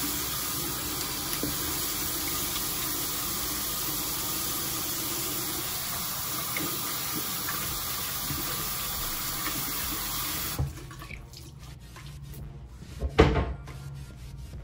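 Bathroom sink faucet running steadily while hands are washed under it, shut off abruptly about ten seconds in. A few small clicks follow, then a single loud thump near the end.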